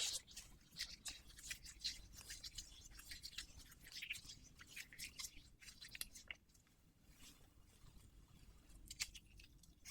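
Latex-gloved hands rubbing and working lubricant close to the microphone: soft, irregular sticky crackles and rustles, with quick clicks that come and go.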